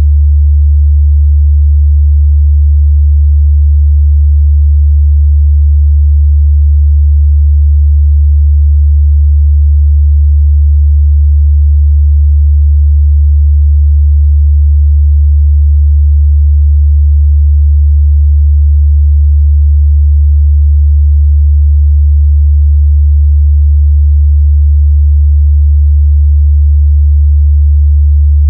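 A steady 73 Hz sine-wave test tone: one constant low bass hum with no change in pitch or loudness, used to check a speaker's or headphone's mid-bass response.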